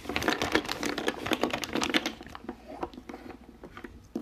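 Small round scent tester pots clicking and clattering together as they are taken out of a plastic bag and set down on a wooden table, in a quick, uneven run of light clicks.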